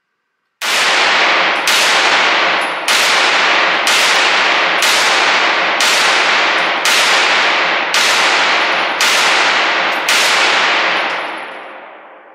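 Ten single shots from a short-barreled rifle at a steady pace of about one a second. Each shot rings and echoes heavily in an indoor range, and the echo dies away over about two seconds after the last one.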